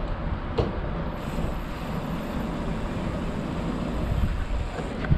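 Wind rumbling on the microphone of a moving mountain bike's rider-view camera, with a single sharp click about half a second in.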